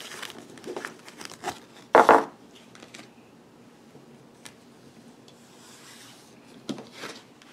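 Tarot and oracle cards being gathered up by hand from a cloth, sliding and rubbing against each other. There is one louder thump about two seconds in and a few light taps near the end.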